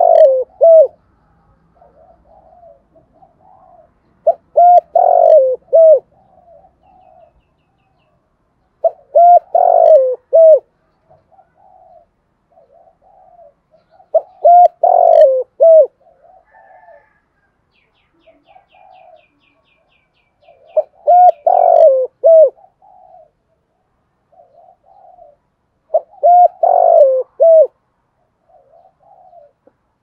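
Spotted dove cooing in its 'thúc gù' call: a loud phrase of three or four coos repeated about every five seconds, six times in all, with softer coos in between.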